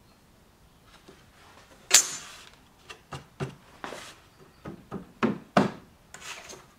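A long flat steel tool set down on a wooden workbench with a sharp metallic clatter about two seconds in. It is followed by about nine irregular wooden knocks and taps as the bar clamp holding a pine strip is handled.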